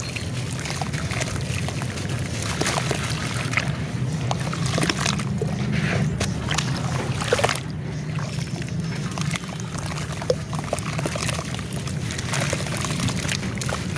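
Wet lumps of grey charcoal-clay paste being crumbled and squeezed by hand into a plastic tub of water, with steady sloshing and splashing and many small crackles as bits break off and drop in.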